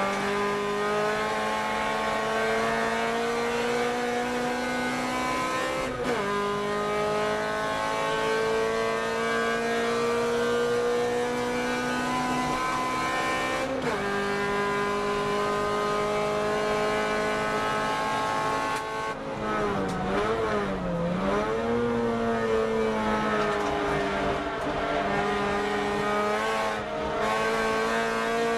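A car engine heard from inside the cabin while driving on a race track. Its pitch climbs steadily under acceleration and drops sharply at gear changes about 6 and 14 seconds in. Around 20 seconds in it dips and wavers briefly, then climbs again.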